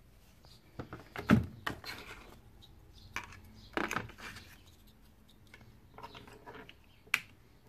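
Handling noises as a plastic-cased Launch CRP 429C handheld scan tool is set down in its cardboard box and its cable is picked up: a series of short knocks, rubs and rustles of card and plastic. The loudest knock comes about a second and a half in, and there is a sharp click near the end.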